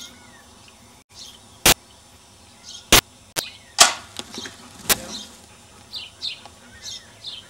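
Small birds chirping faintly and repeatedly in the background. Every second or so comes a very short, sharp knock or click, louder than the birds.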